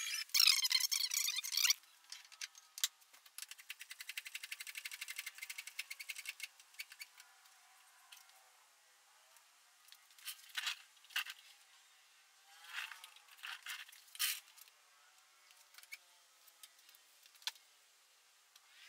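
Background music ends in the first two seconds. Then come faint mechanical clicks and a few short squeaky strokes as a hand-pump cooling-system pressure tester is fitted to the radiator neck and pumped up to pressure.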